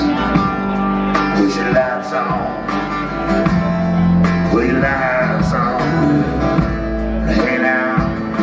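Live band playing: strummed acoustic guitar over drums and keyboard, with a man singing.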